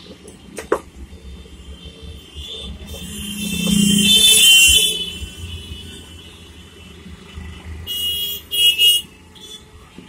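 A motor vehicle passing close by, swelling to its loudest in the middle and fading away, then two short horn honks near the end. Faint clicks near the start.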